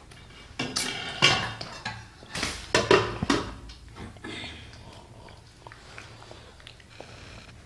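A toddler drinking from a ceramic mug: several short, loud noisy sounds of sipping and handling the mug in the first half, then quieter.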